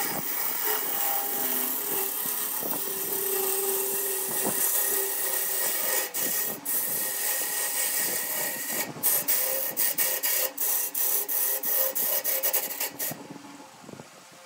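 Turning tool cutting a spinning laminated blank of glued wood panels on a wood lathe: a steady scraping hiss of the tool peeling shavings. Toward the end it breaks into short gaps as the tool comes off the wood. The cutting stops about 13 seconds in and the sound drops off.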